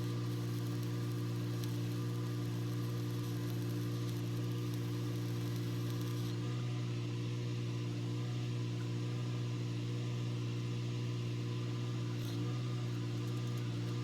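Welding machine running idle with no arc struck, a steady, unchanging hum.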